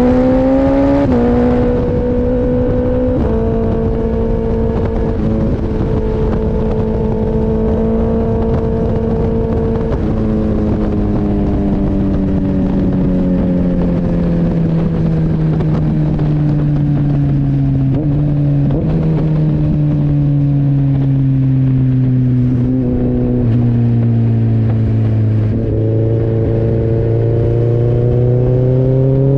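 Gen 2 Suzuki Hayabusa's 1340 cc inline-four running under way, with wind rushing past. The engine note holds steady for the first ten seconds, then sinks slowly as the bike slows. Near the end it steps up and climbs again as the bike accelerates.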